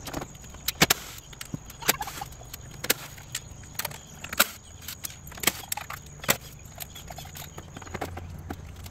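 Scattered sharp clicks and light knocks of hands working loose the plastic headlight and header panel parts at the front of a car, over a low steady hum.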